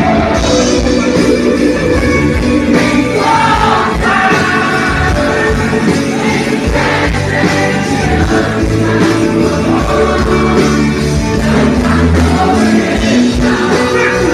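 Live gospel band playing through a PA system, with electric guitar and drums, and a male singer's voice over the music.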